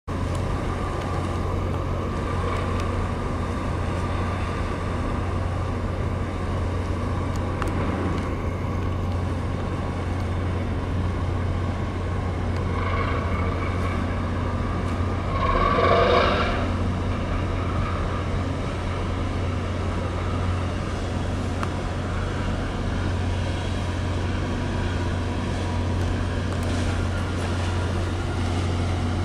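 Steady low engine drone from a large container ship and its harbour tug moving past close by, over a haze of water and wind noise. A short pitched call sounds about thirteen seconds in and again, louder, about sixteen seconds in.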